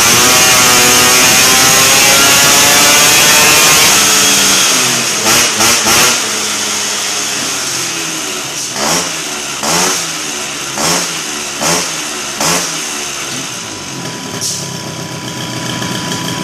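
Aprilia SR 125 scooter engine, air-cooled Malossi kit with a 24 mm PWK flat-slide carburettor, held at full throttle on a rolling-road dyno for about four seconds, its pitch climbing as it pulls. Then the throttle shuts and the engine is blipped: three quick blips close together, then five about a second apart, before it settles back to idle.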